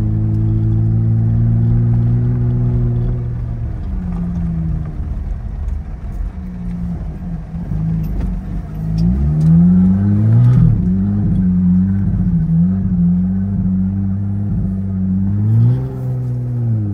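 Jeep Gladiator Rubicon's Pentastar V6 running loud with its exhaust removed, heard from inside the cab while driving. It holds a steady note, drops off about three and a half seconds in, then revs climb about nine seconds in and hold with a wavering note. Near the end the revs rise briefly and fall back.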